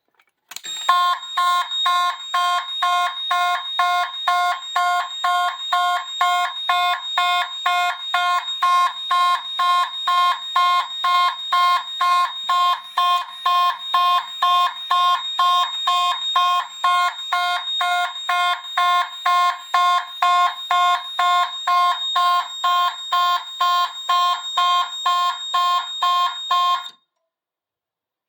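Fire alarm sounding from an Autocall "MD" fire alarm control panel in march-time coding: a loud, shrill alarm tone pulsing on and off about twice a second. It starts under a second in and cuts off abruptly near the end.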